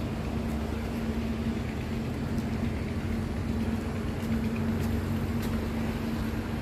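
Steady engine hum at an even pitch over a low rumble.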